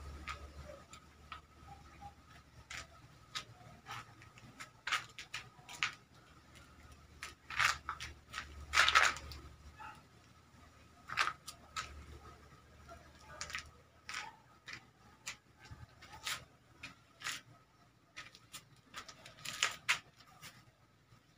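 Irregular short clicks and rustles, some in quick clusters, over a faint steady high tone and a low hum.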